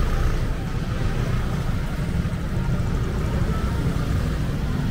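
Busy street ambience: a steady low rumble with faint voices of passers-by.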